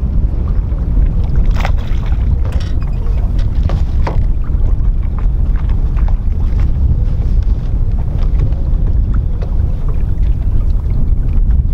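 Wind buffeting the microphone: a loud, steady low rumble. A few light clicks come in the first few seconds.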